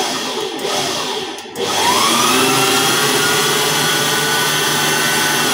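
Electric stand mixer motor running with a steady whine as it mixes a wet bun-dough mixture. About a second in it slows and drops away, then speeds back up to a higher pitch and holds there until it begins to wind down near the end.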